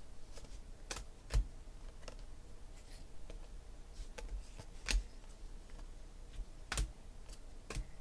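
2016 Panini Phoenix football cards being flipped and sorted by hand: irregular sharp clicks and snaps as the stiff glossy cards slide and tap against one another, with a handful of louder snaps spread through.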